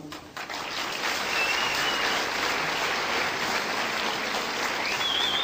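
Audience applauding, a steady crowd clapping with two brief high whistles, one about a second and a half in and one near the end.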